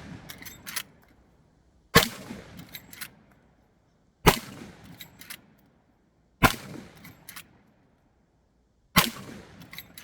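Marlin 1895 SBL lever-action rifle in .45-70 fired four times, about two to two and a half seconds apart, each shot loud and sharp with a rolling tail. Short metallic clicks follow each shot as the lever is cycled to chamber the next round.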